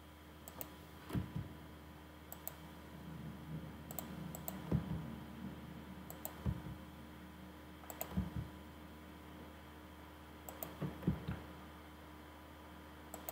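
Computer mouse clicks, scattered and irregular and often in quick pairs, as sketch lines are selected, with a few soft low thumps on the desk and a faint steady electrical hum underneath.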